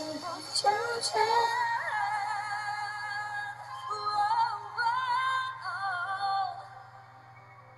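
Music with a woman singing, the sung line wavering in pitch and fading out about two-thirds of the way through. A steady low hum runs underneath.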